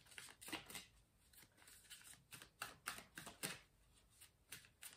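Faint hand-shuffling of a deck of tarot cards: an irregular run of soft card flicks and slaps.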